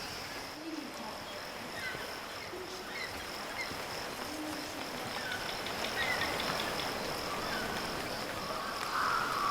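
Jungle ambience: a steady high insect drone with scattered short bird chirps and a few low calls. A louder call starts near the end.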